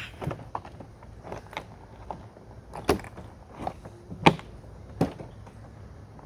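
Folded plastic hull of a Tucktec folding kayak being handled and tucked into place: a string of separate knocks and clacks, the loudest about three seconds in and just past four seconds in.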